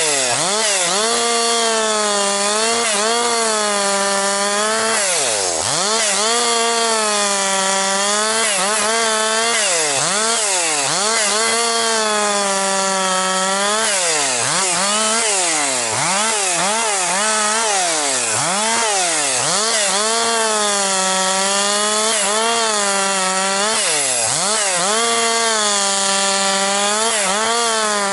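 Husqvarna 262XP single-cylinder two-stroke chainsaw bucking firewood at high revs, its pitch dipping and recovering again and again as the chain works through the wood. About five seconds in the throttle drops off sharply and comes straight back up.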